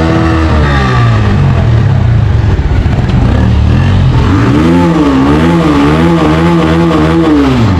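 Motorcycle engine running and revving, its pitch rising and falling once near the start, then wavering up and down repeatedly through the second half as the throttle is worked. The engine is cold, on a chilly morning.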